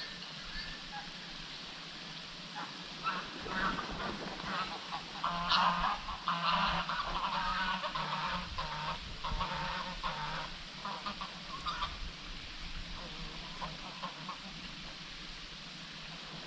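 Birds calling, with a busy run of repeated loud calls between about three and twelve seconds in, over a steady low hum.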